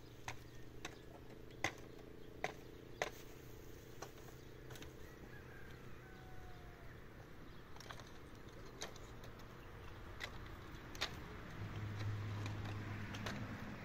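Split wooden planks knocking and clattering as they are shifted and laid across wooden roof poles: a dozen or so sharp, irregular knocks. A low steady hum runs underneath and grows louder near the end.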